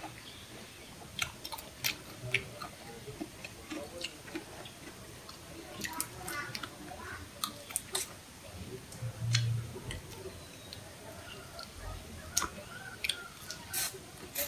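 Close-up eating sounds: chewing with scattered sharp clicks and wet mouth smacks as cucumber and grilled shrimp are eaten.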